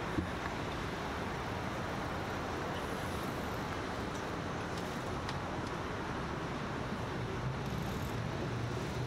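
Steady road traffic noise with a low engine hum, heard while stopped at a junction. One brief click comes just after the start.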